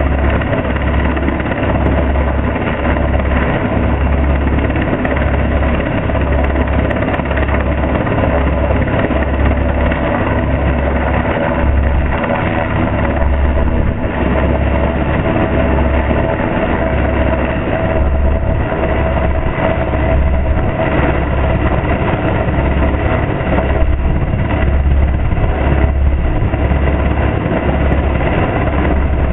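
U.S. Coast Guard MH-60 Jayhawk helicopter hovering low overhead: a loud, steady rotor and turbine din with an even low pulsing throughout.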